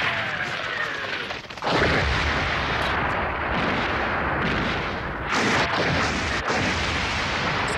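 Mortar fire and shell explosions as animated sound effects: a falling whistle, then a blast about two seconds in, and continuous rumbling explosions with another surge about five seconds in.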